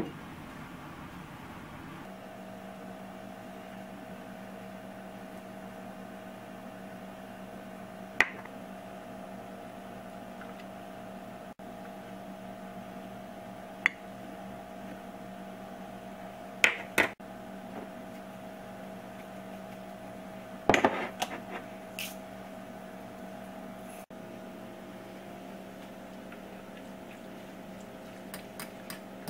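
A metal spoon clinks sharply against a ceramic bowl now and then as food is mixed in it. Under the clinks runs a steady electrical hum.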